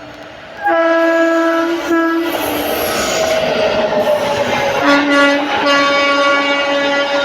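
Express train horn blasting, then the rush and wheel clatter of the train running through at full speed; the horn sounds again near the end, lower in pitch.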